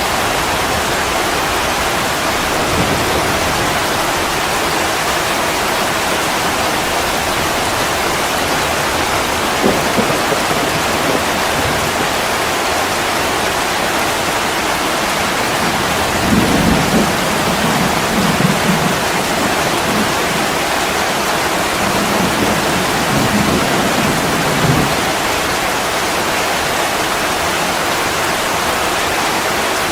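Steady heavy rain falling, with low rolls of thunder rumbling several times, loudest about halfway through and again a little later.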